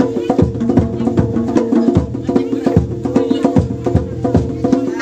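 Javanese gamelan music: ringing metallophone notes in a repeating melodic pattern over regular drum strokes.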